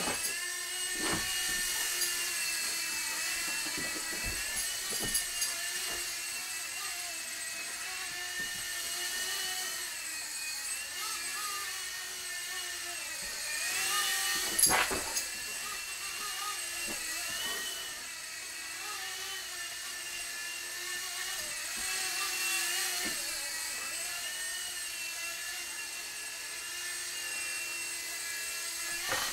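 Blade mSR ultra-micro electric RC helicopter in flight: a steady high motor-and-rotor whine whose pitch wavers up and down as it manoeuvres. A few short knocks and thumps break in, the loudest about 15 seconds in.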